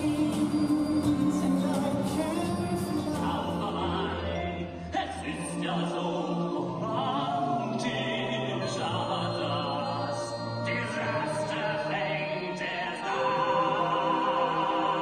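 Music with singing. About four seconds in it switches to a different recording.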